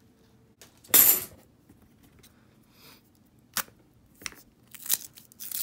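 Half-dollar coins clinking and clicking as they are handled: a short clatter about a second in, then a few separate sharp clicks.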